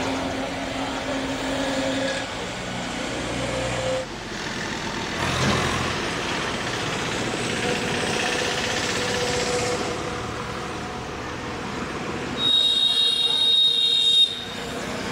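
Outdoor vehicle noise from trucks and buses, with a loud high-pitched tone lasting about two seconds near the end.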